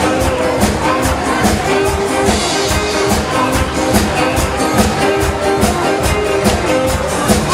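Upbeat backing music with a steady beat.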